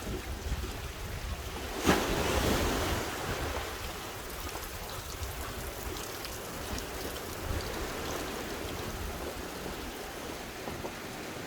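Sea waves washing on the shore, one wave breaking loudly about two seconds in and fading into an even wash of surf, with wind rumbling on the microphone.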